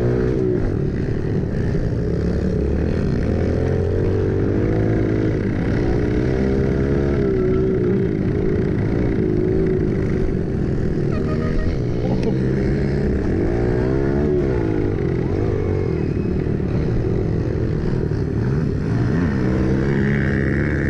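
Pit bike engine heard from on the bike, revving hard with its pitch climbing and dropping again and again as the rider accelerates, shifts and slows for the turns.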